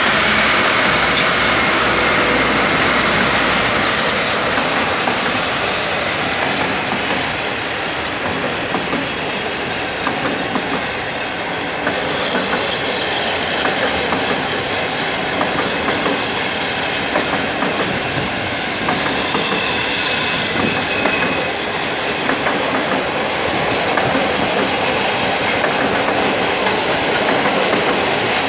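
PKP Cargo ST45 diesel locomotive passing close by, loudest in the first few seconds, followed by a long loaded container freight train rolling past with a steady rumble and the clickety-clack of wagon wheels over the rail joints.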